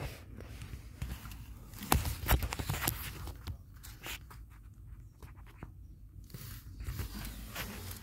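Hands handling the plastic cabin-air-filter housing and trim in a car's footwell: a cluster of sharp clicks and knocks about two to three seconds in, with lighter scraping and rustling around it.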